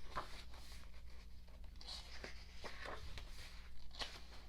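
Photobook pages being turned and handled: several soft papery swishes and rustles, over a steady low hum.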